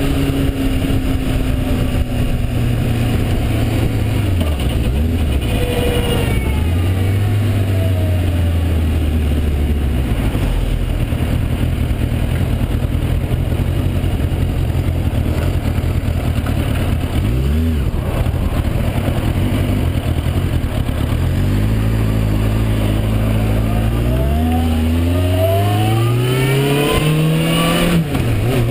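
Onboard sound of a Suzuki GSX750 motorcycle's four-cylinder engine under way, its revs holding, dropping and rising with throttle and gear changes, and climbing through several rising steps in the last few seconds as it accelerates. A steady rush of wind and road noise runs underneath.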